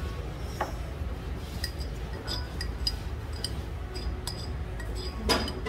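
A metal spoon clinking and scraping against a heavy black stoneware pot while eating: a string of light, irregular clinks, with one louder knock near the end.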